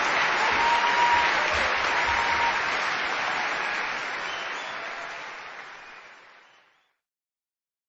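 Crowd applauding, fading out over the last few seconds.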